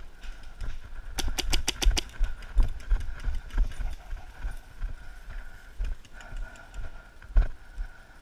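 Paintball marker firing a rapid string of about eight shots about a second in, with another single sharp shot near the end, over the repeated low thuds of running footsteps.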